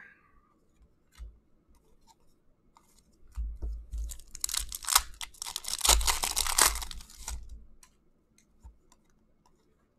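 Hockey trading cards handled and shuffled by hand, a crackling, crinkling rustle for about four seconds in the middle, with faint clicks of cards before and after.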